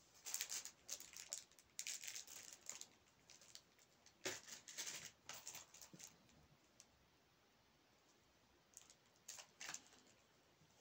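Faint, intermittent crinkling and rustling of small plastic zip bags being handled, with a few seconds of near quiet past the middle.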